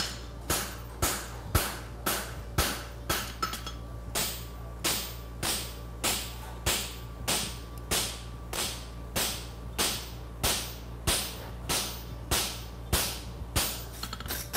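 Farrier's hammer striking a hot steel horseshoe on an anvil: steady, evenly paced blows, about two a second, each with a short metallic ring.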